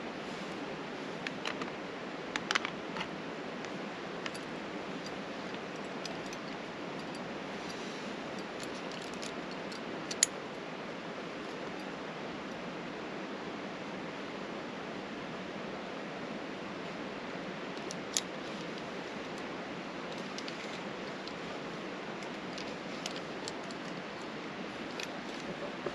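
Steel ice-tool picks and crampon points on rock: occasional sharp metallic clicks and scrapes, a few together near the start, a loud one about ten seconds in and a few more near the end, over a steady background hiss.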